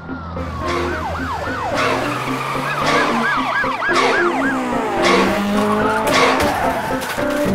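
Intro theme music: held low notes under a high tone that sweeps up and down like a siren, repeating about two and a half times a second in the middle, punctuated by several sharp hits.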